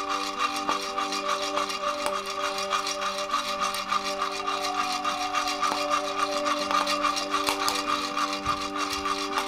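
Coffee beans rattling and rubbing inside a hand-held metal roaster (Hatsumei Kobo Iri-jouzu) as it is shaken steadily over a gas flame; the beans are being roasted on toward a dark roast.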